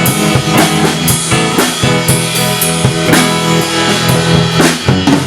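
Live rock music from an electric guitar and a drum kit playing an instrumental passage between vocal lines, the drums hitting in a steady beat.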